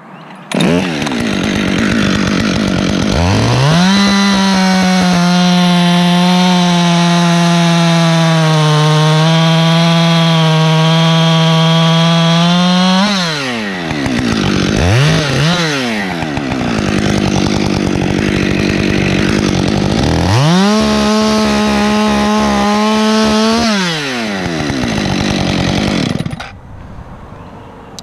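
Two-stroke top-handle chainsaw revved to full throttle and held for about nine seconds, its pitch dipping slightly midway. It drops back, gets a couple of quick throttle blips and idles, then is revved up again for about three seconds. It is shut off near the end.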